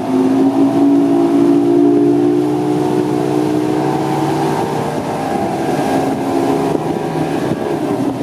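Mercury OptiMax Pro two-stroke outboard motor running at planing speed, a steady engine drone over a rush of wind and water.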